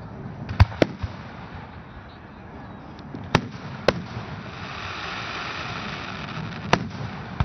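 Aerial firework shells bursting: about half a dozen sharp bangs in three clusters, a pair about half a second in, another pair about three and a half seconds in, and more near the end.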